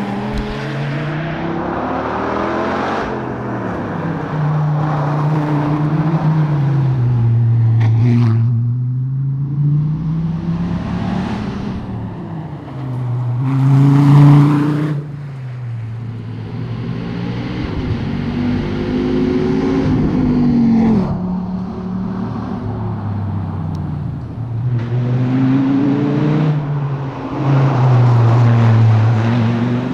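Dodge Viper ACR's 8.4-litre V10 engine at racing speed, its note climbing under acceleration and dropping back again and again through gear changes and braking. It is loudest about fourteen seconds in.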